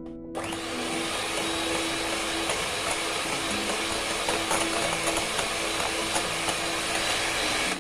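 Hand-held electric beater running steadily, whisking eggs, sugar and oil until the sugar dissolves. It switches on a moment in and runs without a break.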